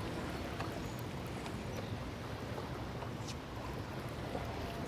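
Steady rush of turbulent dam-tailwater churning around a drifting boat, with a few faint ticks.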